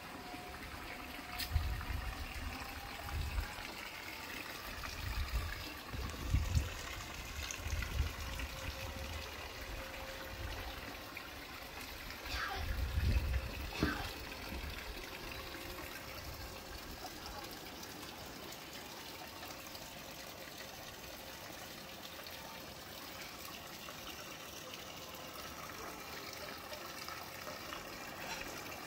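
Steady trickle and splash of water flowing into a swimming pool from its circulation return, fed by a solar-powered pool pump. Low rumbles come and go in the first half.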